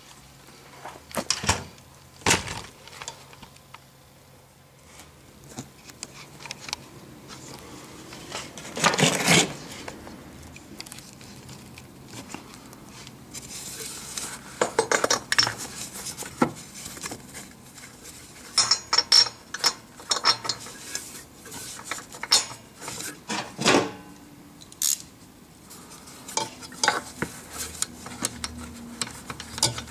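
Hand work in a Suzuki Address V100 scooter's engine compartment while getting at the spark plug: irregular clinks, clicks and clatter of parts and tools, with a couple of longer scraping or rustling noises.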